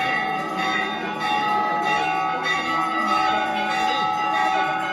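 Temple bells being rung over and over, fresh strikes about every half second so that several ringing tones overlap and sustain without a break.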